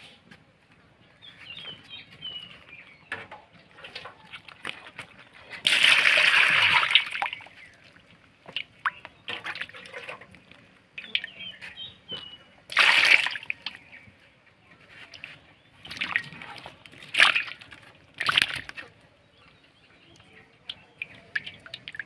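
Water poured into a basin of live spotted snakeheads, followed by short bursts of splashing and sloshing as the fish thrash in the water.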